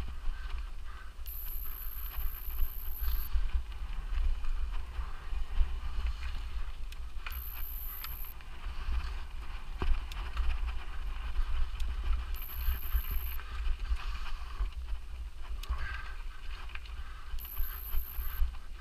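Mountain bike ridden along a forest trail: tyres on dirt and the bike rattling, with many small clicks over a deep wind rumble on the microphone. A very high thin whine comes in four short spells, about every five seconds.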